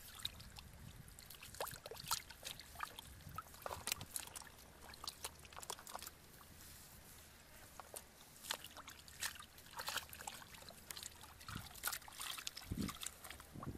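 Hands groping through shallow muddy water: irregular small splashes, sloshes and trickles of dripping water.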